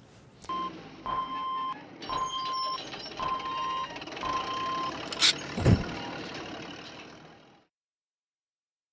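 A heavy vehicle's reversing alarm beeping about once a second over engine noise, then a short sharp click and a deep thud about five and a half seconds in, after which it all fades out.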